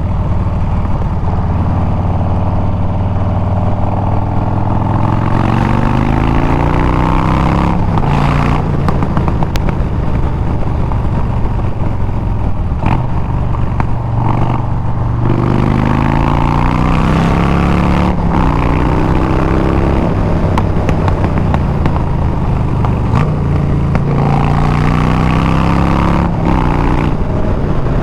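Harley-Davidson Milwaukee-Eight 114 V-twin running through a Bassani exhaust under way, climbing in pitch as it accelerates and dropping back at each gear change, several times over.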